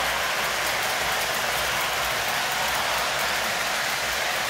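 O gauge model train running around its track: a steady rolling noise with a low rumble.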